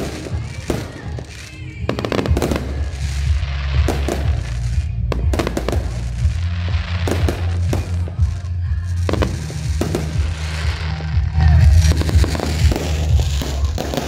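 Fireworks display: many sharp bangs in quick, irregular succession with crackling in between, over music.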